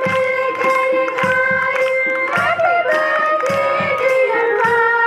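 A group of girls singing a song together in unison, over instrumental accompaniment with a steady beat.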